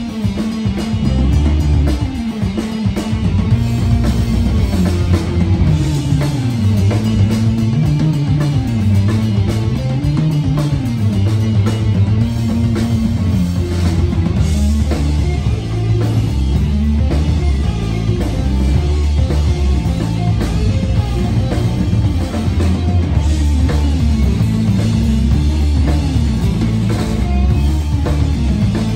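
Rock band playing live on electric guitar, bass guitar and drum kit, with the low bass line loudest.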